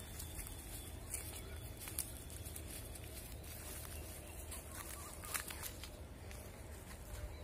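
Footsteps on a dry dirt path scattered with dead leaves and twigs, with a few separate crackles over a steady low rumble.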